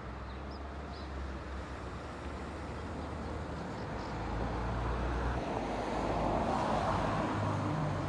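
Steady low rumble of a vehicle engine or road traffic, swelling louder in the second half, with a few faint short high chirps from the flock of small birds.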